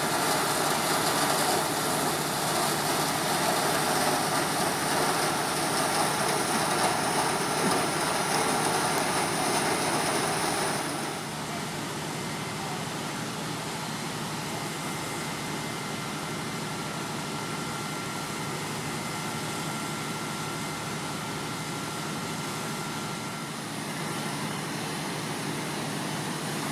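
Fire engine pumps running steadily, with the hiss of a high-pressure firefighting water jet from a hose and ground monitor. The sound is loudest and hissiest at first, then drops suddenly to a lower steady level about eleven seconds in, with a faint steady whine running through it.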